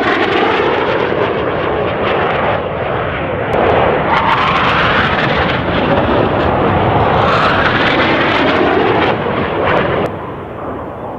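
Northrop F-5E Tiger II jet flying low past in demonstration passes, its twin turbojets making a loud jet noise with the pitch sweeping as it goes by. The sound drops noticeably quieter about ten seconds in.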